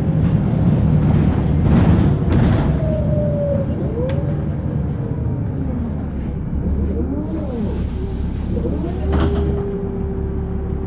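Volvo B7RLE single-deck bus heard from inside: the six-cylinder diesel engine and drivetrain running, with whining tones that rise and fall in pitch. A hiss of air lasts about two seconds, starting around seven seconds in. Near the end a steady whine takes over.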